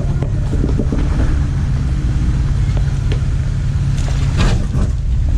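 Off-road vehicle's engine running at low revs, a steady low rumble, with a short cluster of knocks about four and a half seconds in.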